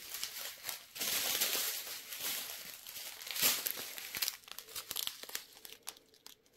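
Thin clear plastic bags of round resin diamond-painting drills crinkling as a strip of them is lifted and handled. The rustling is densest in the first half, then thins to scattered short crinkles.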